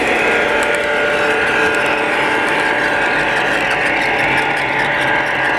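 3rd Rail O-gauge model train, FP7 diesel units and passenger cars, rolling past on three-rail track: a steady whirr of motors and gearing with light clicking from the wheels on the rails.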